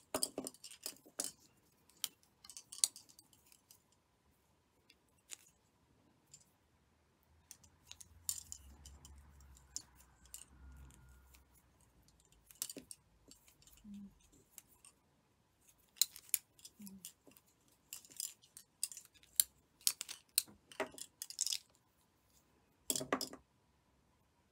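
Plastic tatting shuttles and fine thread being handled: irregular light clicks and taps, loudest about a second before the end, with a soft low rumble for a few seconds near the middle.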